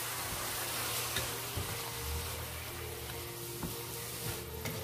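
Chicken, carrots and onion sizzling and simmering in a frying pan just after a splash of water was added to soften the chicken; the sizzle fades down as the water boils off. A few light taps of a spatula against the pan.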